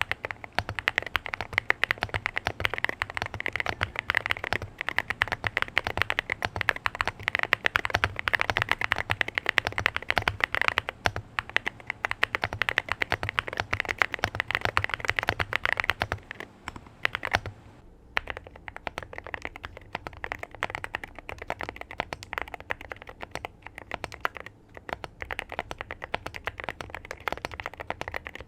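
Continuous fast typing on an Akko MU01 wooden mechanical keyboard fitted with Akko 5-pin linear switches, a rapid run of key clacks. After a brief pause about two-thirds of the way through, the typing goes on quieter.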